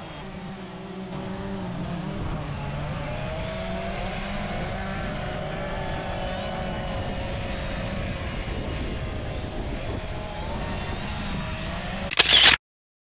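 Two-stroke chainsaws running as carvers cut into wood, their engine pitch wandering up and down. A loud burst comes near the end, then the sound cuts off abruptly.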